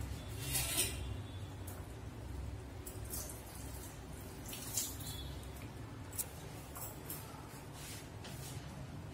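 Moong dal simmering in a pan, with scattered soft pops of bursting bubbles over a steady low hum.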